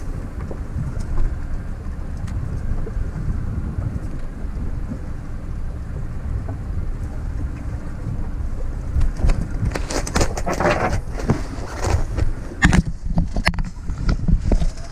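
Wind buffeting the microphone over the steady low rumble of a boat underway. From about nine seconds in, louder irregular rustling and knocks come and go.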